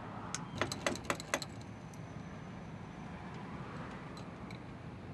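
Ratchet and socket working a 10 mm bolt at the bottom of a car's fender: a handful of sharp, uneven metal clicks in the first second and a half. After that only a low steady background remains.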